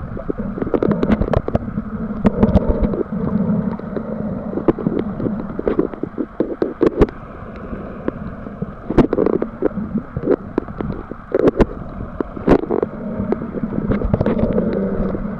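Muffled water noise picked up by a camera held underwater: a steady rumble with frequent irregular clicks and knocks, from water moving around the camera and from handling it.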